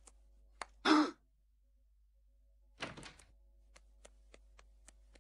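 Light scattered taps of cartoon footsteps, with a short thud about a second in and another, softer one just before three seconds in.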